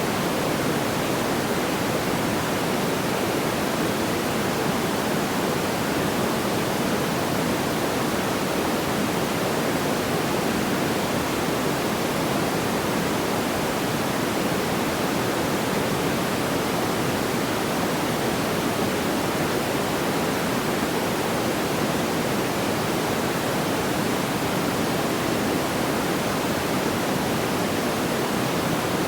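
Steady, even rushing noise, fuller in the lower-middle range, with no crackles or pops and no change throughout.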